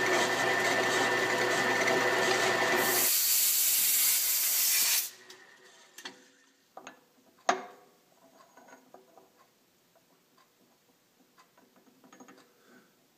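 Machine tool running a boring cut to open a hole in a steel plate a few thousandths larger, because a 1¼-inch gauge rod was too tight; it runs steadily, turns brighter and hissier about three seconds in, and stops about five seconds in. Light metal clicks and one sharp knock follow as the work is handled.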